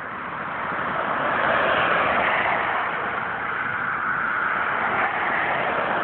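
A car passing on the road, its tyre and road noise swelling to a peak about two seconds in and then easing off into a steady traffic hiss.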